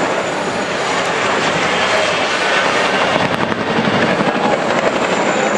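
Helicopter flying past, its rotor blades chopping in a steady, rapid beat over loud engine noise.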